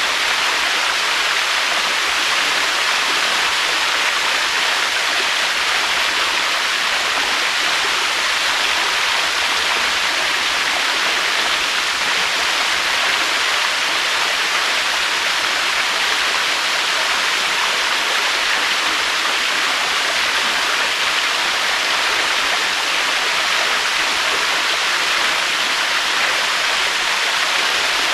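Waterfall: water falling and rushing in a steady, unbroken hiss with no rise or fall.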